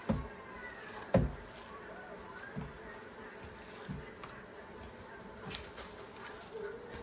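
Hands mixing seasoned ground beef in a bowl, giving dull thumps about every second and a half, the loudest about a second in. A steady buzzing hum runs underneath.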